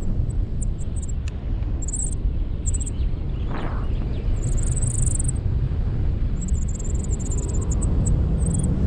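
Wind rushing over the microphone, a steady low rumble, with faint high chirps scattered on top.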